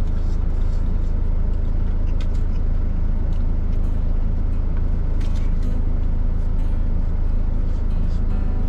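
Truck engine idling steadily, heard from inside the cab. A few faint clicks, like chopsticks against a plastic lunch box, come over the engine.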